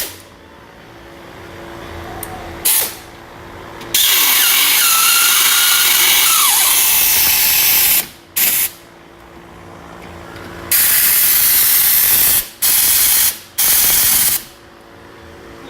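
Air impact wrench running in a series of bursts, spinning wheel lug nuts on: one long run of about four seconds, then several shorter ones.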